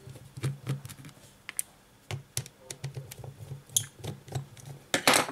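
Small, sharp plastic clicks and taps from fingers and a fingernail working at the edge of a Sony Xperia E4 smartphone's back cover, in an irregular run, with a louder scratchy rustle near the end.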